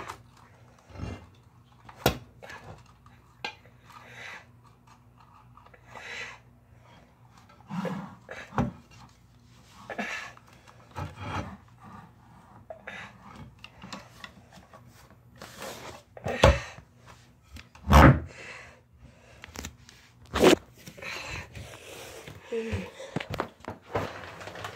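Handling noise from a phone held against the body: the microphone rubs and bumps against clothing in scattered rustles and knocks, the two loudest about a second and a half apart past the middle, over a faint steady low hum.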